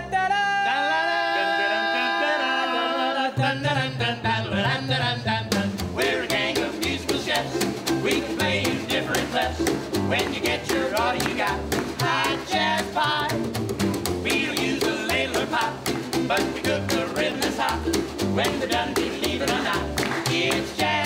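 Acoustic swing trio of ukulele, upright bass and snare drum played with sticks, with singing. A sung phrase opens over the ukulele, the bass comes in about three seconds in, and a couple of seconds later the snare starts a steady swing beat under the voices.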